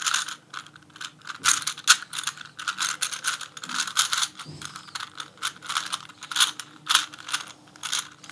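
A very loose Rubik's Cube being turned layer after layer, its plastic pieces clicking and clacking in quick, uneven runs: the really clinky sound of a cube loosened on all sides.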